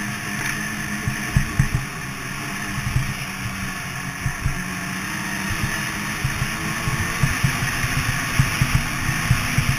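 Snowmobile engine running steadily under way on a packed snow trail, with irregular low thumps throughout as the machine rides over bumps.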